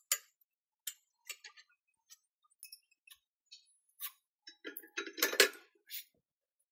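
Irregular sharp clicks and light clinks, like small hard objects knocking together, with a denser, louder cluster about five seconds in.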